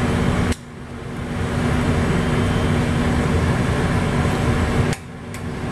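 Steady rushing noise of a commercial gas wok range with a low hum, under a wok heating up. It drops off abruptly about half a second in and again near the end, building back up gradually each time.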